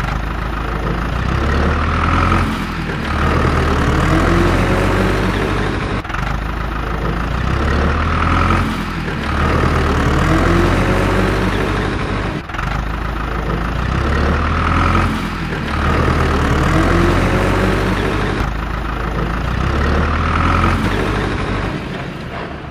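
A dubbed-in truck engine sound effect, looped about every six seconds, its pitch rising and falling in each pass; it fades out near the end.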